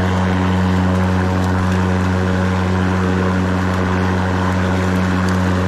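Ryobi 40V brushless battery lawn mower running steadily while cutting grass: an even, low-pitched hum from the electric motor and spinning blade.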